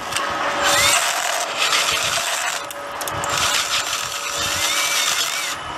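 Ryobi cordless drill spinning a diamond-toothed reaming bit, grinding into the concrete of post-tension tendon pockets with a steady motor whine under gritty scraping, briefly easing about two seconds in. It is reaming each pocket flush with the slab edge to clean it before the plug is set.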